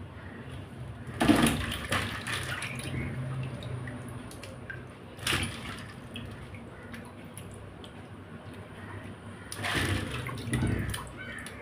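Water sloshing and splashing in a pan as cleaned crab pieces are rinsed by hand, with louder splashes about a second in, midway and near the end.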